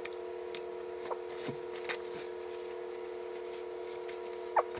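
A fork clicking and scraping on a plate while eating, a handful of light clicks with a sharper one near the end, over a steady electrical hum.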